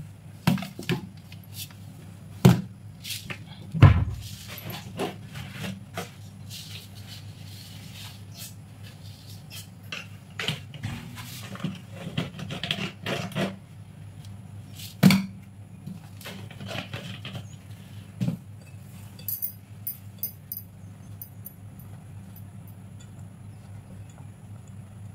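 Kitchen handling sounds: scattered knocks and clicks of containers, lids and utensils picked up and set down on the countertop, a few sharper knocks standing out, over a steady low hum.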